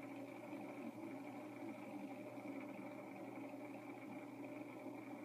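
Faint, steady background hum, unchanging throughout, with no distinct events.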